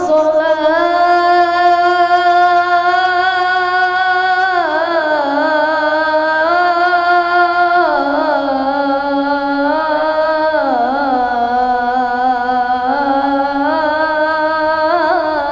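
A child's voice chanting the adhan, the Islamic call to prayer, in the Kurdi melodic mode, drawing the phrase "hayya 'ala" out into one long unbroken melismatic line. The held pitch steps down and back up several times, with quick ornamental turns between the held notes.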